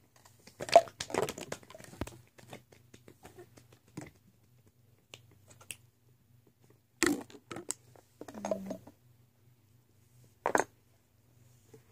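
Handling noise: scattered knocks, clicks and rustles of hands moving objects close to a phone microphone, with louder knocks about a second in, around seven seconds in and near the end. A faint steady low hum sits underneath.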